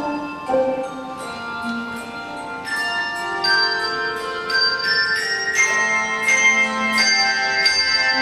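Handbell choir playing a slow hymn: chords of handbells struck every half second or so and left to ring on into one another.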